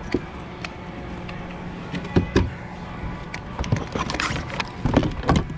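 Irregular knocks and clatter of fishing gear being handled aboard a kayak, over a steady low hum in the first couple of seconds. The knocks come in a cluster near the end.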